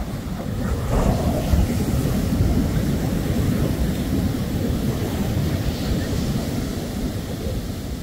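Ocean surf washing on the beach, with wind rumbling on the microphone; the sound swells about a second in and eases a little toward the end.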